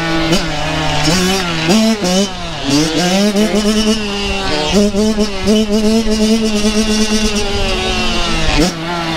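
Kawasaki KX dirt bike engine revving, its pitch climbing and dropping again and again as the throttle is worked, with a sharp rev near the end.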